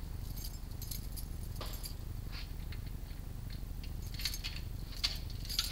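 Scattered light clicks and small scuffs over a steady low rumble, heard through the microphone of a small action camera strapped to a stationary RC crawler. The clicks come in loose groups, a few more of them near the end.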